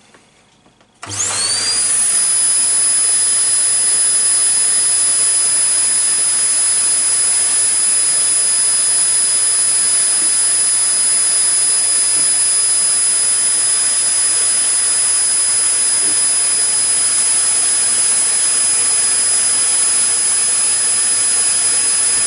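A high-speed electric motor switches on about a second in. Its whine rises quickly to a steady high pitch, then it runs at an even, unchanging speed.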